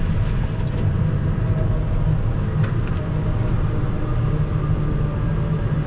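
Steady low rumble of a vehicle's engine and road noise, heard from inside the cabin while driving.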